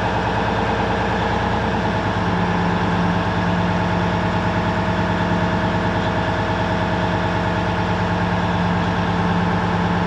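Cummins N14 inline-six diesel in a roll-off truck idling steadily while its air brake system builds pressure.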